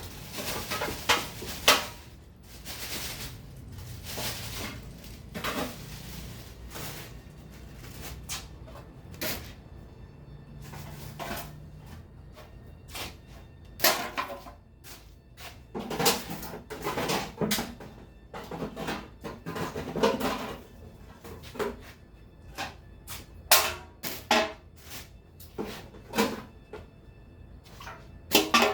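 Rubbish being sorted by hand: irregular knocks, clatter and rustling as containers and bags are handled, with a cluster of louder knocks about halfway through.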